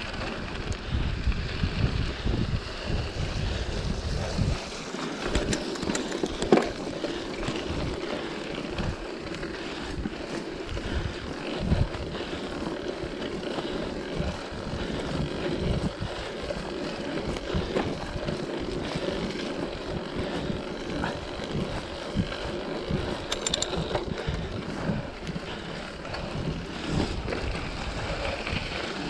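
Mountain bike descending a dirt trail: tyres rolling and the bike rattling over the rough ground, with a few sharp knocks, and wind buffeting the microphone, heaviest in the first few seconds.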